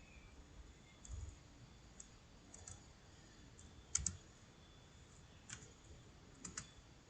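Computer keyboard keys pressed one at a time, a few faint clicks spaced about a second apart, with the loudest a quick pair about four seconds in.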